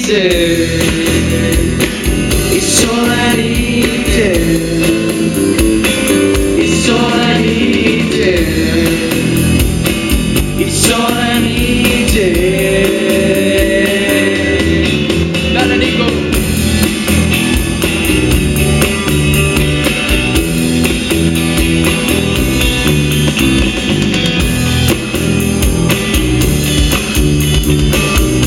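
A song with a singing voice over guitar and a steady backing. The voice is heard mostly in the first half, and guitar carries the rest.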